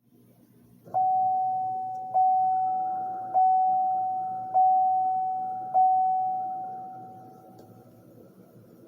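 Sound chip in a Matchbox toy 2002–2006 Cadillac Escalade playing the General Motors door chime. Five single-pitched bongs come about a second and a bit apart, starting about a second in, and each dies away; the last fades out slowly.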